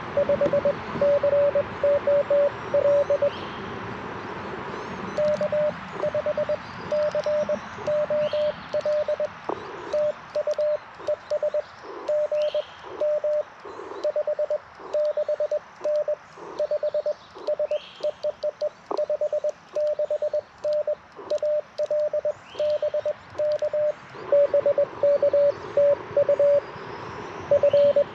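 Morse code from an Icom IC-705 transceiver's speaker: one steady mid-pitched CW tone keyed on and off in dots and dashes, over a hiss of band noise that drops away for much of the middle stretch.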